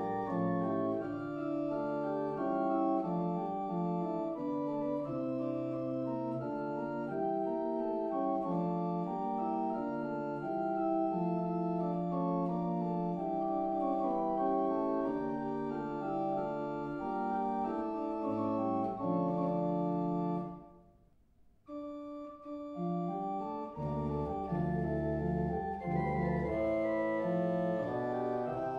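A 1986 Boogaard/Elshout pipe organ plays a chorale setting in sustained, moving chords. About two-thirds of the way through the music stops and dies away briefly, then starts again; a few seconds later a deep pedal bass and brighter upper stops join in.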